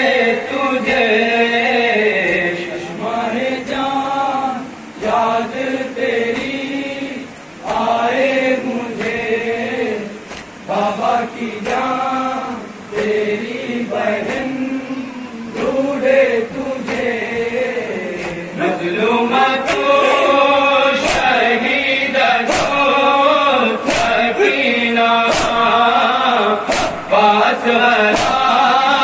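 Men's group reciting an Urdu noha (Shia mourning lament) in unison at a microphone, the melodic lines rising and falling phrase by phrase. Sharp chest-beating (matam) slaps keep time about once a second, plainest in the second half.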